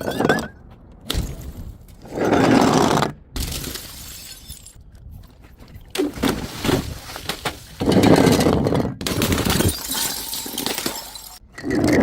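Glass bottles shattering one after another: about half a dozen sudden crashes of breaking glass, the two loudest each ringing on for about a second.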